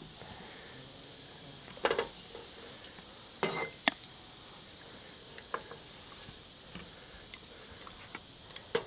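Ladle clinking and knocking against a metal cooking pot and bowl while serving chicken and dumplings, a few sharp clinks with the loudest about two and three and a half seconds in.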